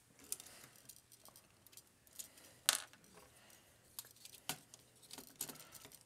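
Faint clicks and taps of hard plastic parts being handled and pressed together as an accessory is pegged onto an action figure's ball joint, with one sharper click about two and a half seconds in and a few lighter ones near the end.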